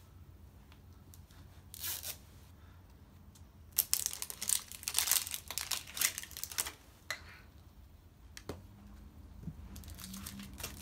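Wrapping on a toy surprise ball being torn and crinkled open by hand: a short rip about two seconds in, then a dense stretch of tearing and crinkling for about three seconds, followed by a couple of single sharp clicks.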